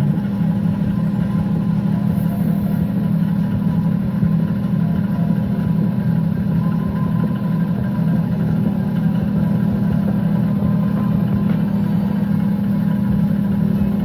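Microwave oven running: a loud, steady low hum from its transformer and magnetron that holds unchanged throughout.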